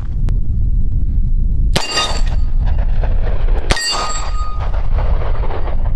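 Two shots from a Taurus 605 polymer-frame revolver, about two seconds apart. Each is followed by the ring of a struck AR-500 steel target plate. Wind rumbles steadily on the microphone.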